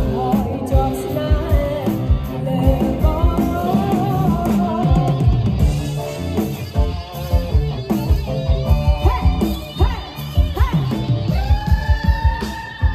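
Live band music with a singer over a steady drum beat.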